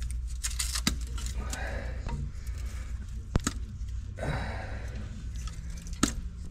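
Scattered sharp clicks and knocks of hand work, a close pair midway, with brief rustling, over a steady low hum.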